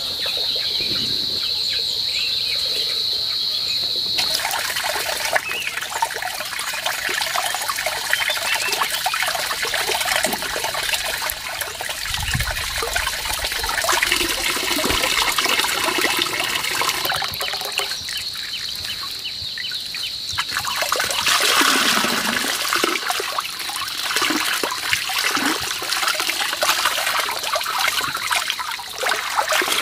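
Water from a garden hose running and splashing into a basin, steady and continuous. For the first four seconds a steady high-pitched insect drone sits over it, then stops.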